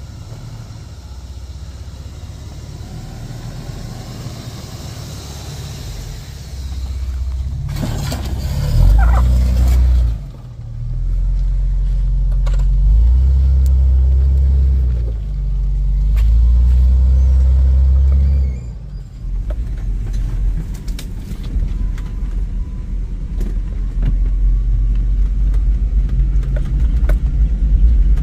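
Toyota LandCruiser 105 Series engine working at crawling speed on a steep, rutted 4WD track: a deep, steady rumble that swells about eight seconds in and stays loud for some ten seconds with brief dips. From about nineteen seconds the sound is heard from inside a moving vehicle's cabin: a rough drone with many small knocks and rattles over bumpy ground.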